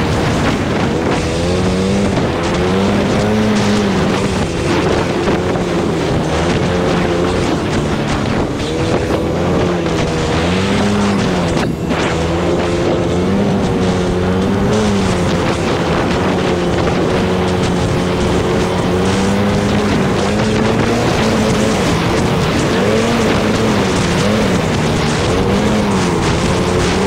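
ATV engine running under varying throttle, its pitch rising and falling every second or two, over a steady rushing noise.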